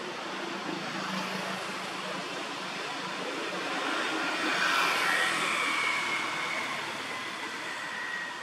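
A vehicle passing: a steady rushing noise swells to its loudest about halfway through and then fades, with a high whine that drops slightly in pitch as it goes by.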